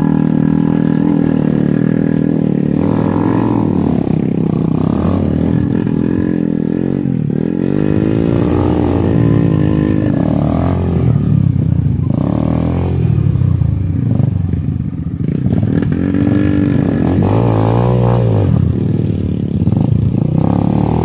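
Yamaha dirt bike's engine revving up and down again and again in short throttle blips while it is ridden slowly down a rough dirt trail.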